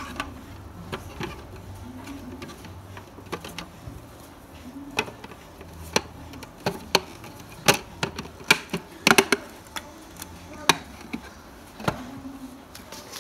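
Hard plastic clicks and knocks from an IKEA BYGGLEK Lego storage box and its lid being handled and fitted together, coming irregularly, with a quick cluster of clicks a little past the middle.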